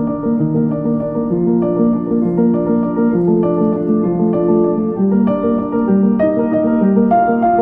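Background music: a piano piece with a steady stream of melodic notes.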